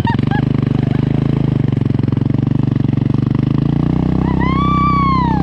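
Small engine of the towing vehicle running steadily under load as it pulls a sled over snow. A high voice lets out a few short squeals at the start and one long rising-and-falling whoop near the end.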